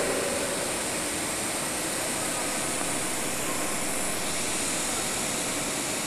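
River water rushing over rocky rapids and a small waterfall, a steady even hiss.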